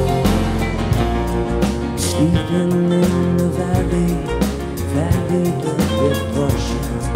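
Background music: a band song with a bass line and a steady beat.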